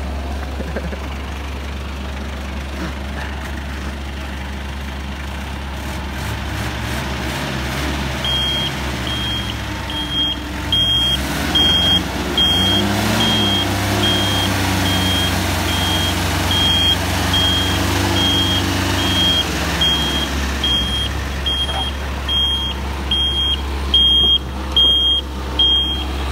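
Diesel engines running under load, the engine note rising and falling as the Mitsubishi J44 jeep's 4DR5 diesel tows a Bomag road roller on a strap. From about eight seconds in, the roller's travel alarm beeps about every half second, louder near the end.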